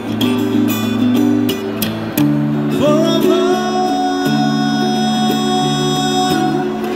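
Acoustic guitar strummed in a steady rhythm, with a man singing; about three seconds in, his voice slides up into one long held note.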